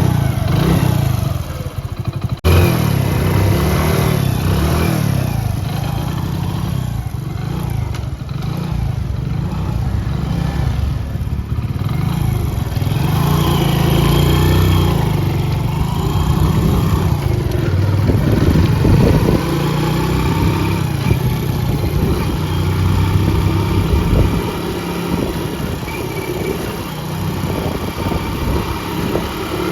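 Hero Honda motorcycle engine running, with no gear noise: the clatter came from a third-gear sprocket with bent teeth, now repaired, and the engine sounds clean.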